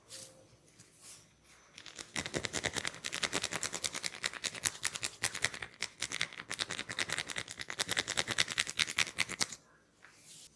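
Hands tapping rapidly on a person's head during an Indian head massage: a fast, even run of light percussive strikes that starts about two seconds in and stops abruptly shortly before the end.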